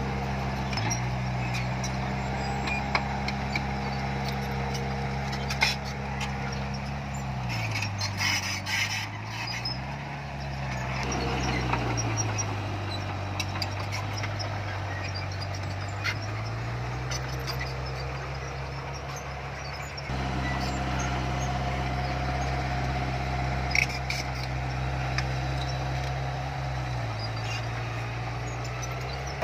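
Bulldozer's diesel engine working, its speed dropping and climbing several times, with scattered metallic clanks.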